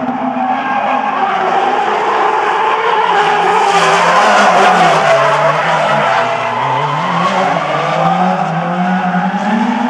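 Two drift cars sliding in tandem, their engines held at high revs while the tyres skid and squeal. The engine note sags a little about halfway through, then climbs again near the end.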